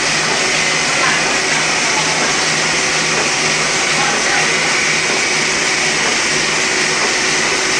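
Heidelberg MOZP offset printing press running at a steady speed: a continuous, even mechanical noise with a steady hum under it.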